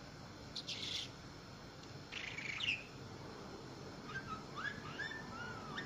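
Budgerigar chirping and warbling. Two short scratchy calls come in the first three seconds, then a run of quick rising and falling chirps near the end.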